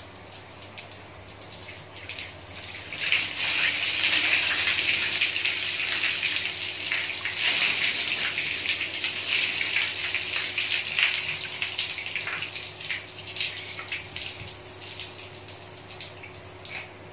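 Water gushing out of a slit-open sheep carcass and splashing into a plastic basin below: water that had been run into the rumen through a hose to flush it out. The gush starts about three seconds in and tapers off toward the end.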